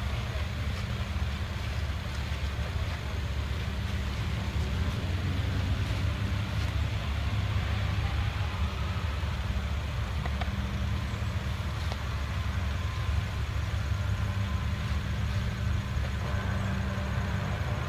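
Steady low rumble with a hiss above it and a faint hum, even throughout, with no single event standing out.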